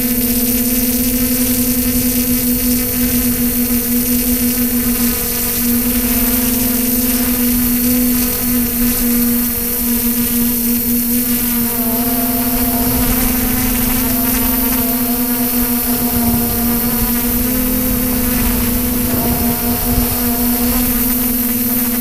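Multirotor drone's electric motors and propellers buzzing steadily in flight, heard close up from the craft itself; the pitch holds, shifting slightly now and then.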